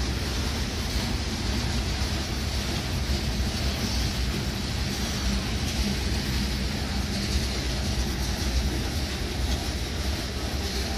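Freight train cars, covered hoppers and then tank cars, rolling steadily past: a continuous rumble of steel wheels on rail.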